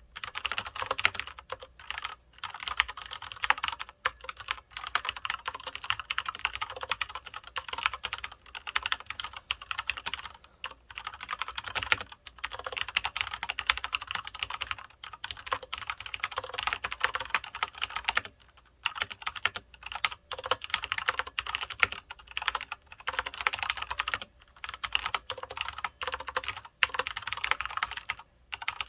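Fast continuous typing on a Filco Majestouch 2 mechanical keyboard with Cherry MX Brown switches: rapid key clacks in bursts, with brief pauses of under a second between runs.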